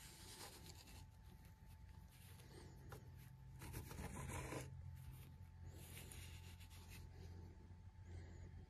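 Faint scraping and rubbing of a seal puller prying the old seal out of an ATV rear axle tube, in short bouts, the longest about four seconds in, over a low steady hum.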